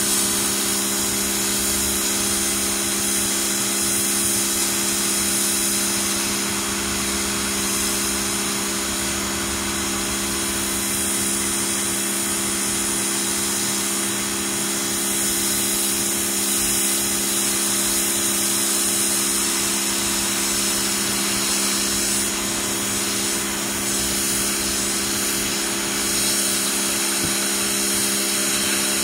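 Pressure washer running steadily: an even motor hum under the hiss of the water jet spraying onto concrete.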